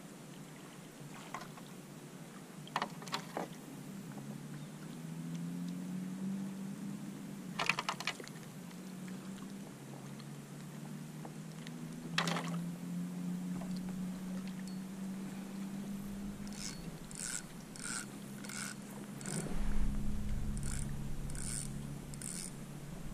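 Fishing gear handled aboard a kayak: a few scattered knocks, then a run of quick mechanical clicks, about three a second, over the last several seconds. Under it a low steady hum wavers slowly in pitch, with a low rumble rising near the end.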